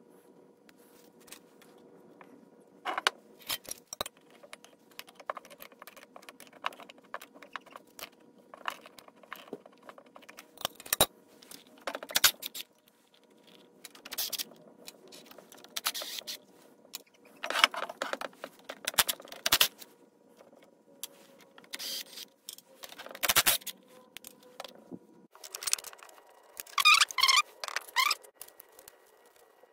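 Metal tools and small steel injection-pump fittings clinking, rattling and scraping on a steel workbench in irregular short bursts as the fittings are taken off an old diesel injection pump, with a busier stretch of rattling near the end.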